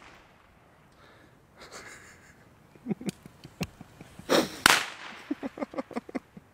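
A small leftover firecracker goes off with one sharp bang a little after four and a half seconds in, after a few seconds of its fuse burning with faint hissing and small crackles. Several lighter clicks follow.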